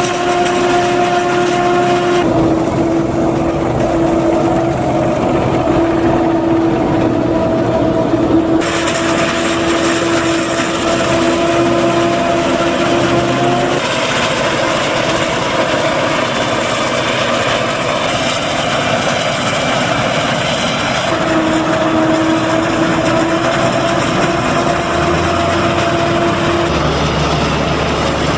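Claas Jaguar 950 forage harvester chopping maize through its Kemper 360 header: a steady machine drone with a held whine. The whine drops out and returns as the sound changes abruptly every few seconds.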